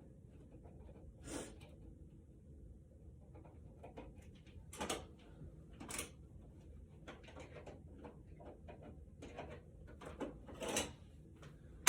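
Flathead screwdriver unscrewing the two small screws from a light-switch wall plate: scattered clicks and scrapes of metal on screw heads and plate, a few of them louder.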